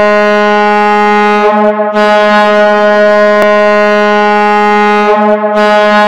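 Hockey goal horn sounding loud and steady on one low pitch, in long blasts with brief dips about a second and a half in and again about five seconds in.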